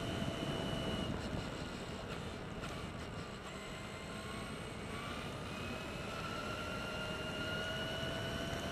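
Electric motor whine of a Traxxas E-Maxx RC monster truck driving, heard over a steady rushing noise. The whine fades about a second in, then returns near the middle and rises slowly in pitch as the truck speeds up.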